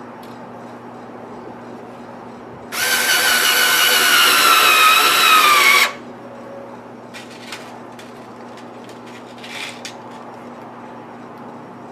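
Power drill running into wood for about three seconds, its whine sinking slightly in pitch under load, then stopping abruptly; a few light clicks and rattles follow.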